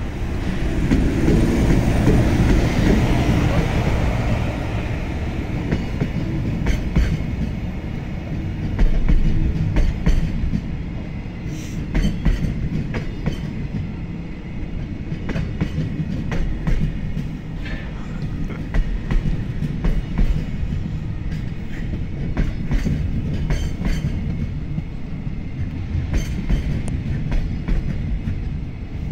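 Container freight train hauled by a JR Freight EF210 electric locomotive passing at speed: a loud rush as the locomotive goes by in the first few seconds, then a steady rumble of the container wagons with their wheels clicking over the rail joints.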